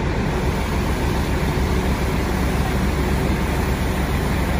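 Fire engine's diesel engine running steadily nearby, a low, even rumble with no change.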